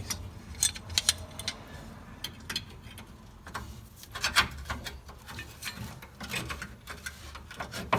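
Irregular metal clicks, taps and scrapes as a pry bar works an old rubber K-member bushing loose from the car's steel frame.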